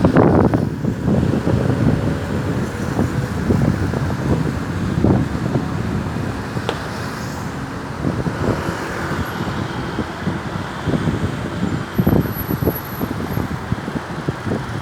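Road traffic noise: motor vehicles passing in a low, steady rush that swells and fades unevenly.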